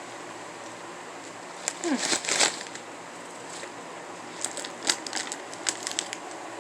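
Bugles Ranch corn snacks crackling and crunching: a dense burst of crackles about two seconds in, then a run of sharp, separate crunches near the end.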